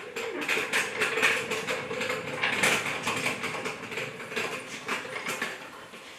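A quick run of metallic clicks and rattles from a trolley jack being pumped to lift the rear axle back into place under the car.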